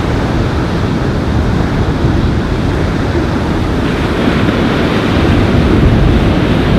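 Strong wind buffeting the microphone over the roar of surf on a beach: a loud, low, gusting rumble with no distinct wave crashes, swelling slightly after about four seconds.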